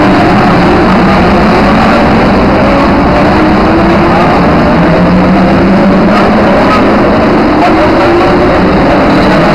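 A field of GT race cars, Porsche 911 GT3s among them, accelerating away from the race start. Many engines run at once in one loud, unbroken blend, with several engine notes rising and falling over each other.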